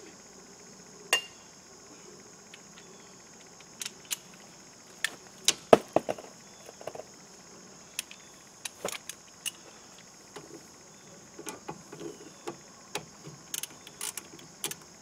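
Scattered metal clinks and knocks of hand tools working the caliper bolts on a Honda Accord's front brake caliper, with sharper knocks about a second in and around six seconds in and quicker clinks near the end. A steady high insect chirring sits underneath.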